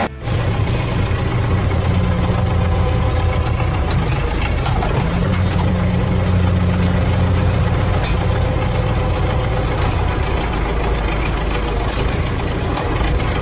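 A heavy engine running steadily, a low droning hum whose pitch shifts slightly about five seconds in.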